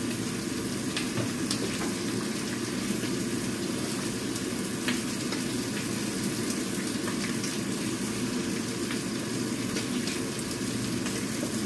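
Korean green onion and squid pancake sizzling steadily in a nonstick frying pan, with small crackles now and then.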